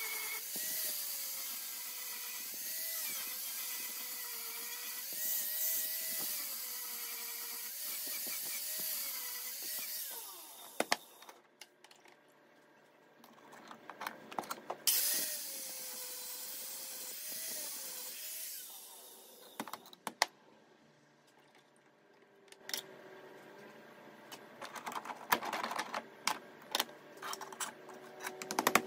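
Small handheld power grinder grinding a steel knife blade held in a vise, in two long runs. Its high whine wavers in pitch as it bears on the metal. Near the end comes a run of short, uneven scraping strokes of a file on the blade.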